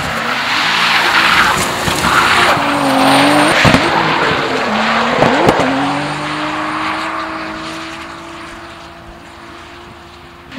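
BMW E90 drift car's engine held at high revs while its rear tyres squeal and smoke in a long slide. The revs drop sharply and climb again twice, a few seconds in, then the sound fades as the car moves away.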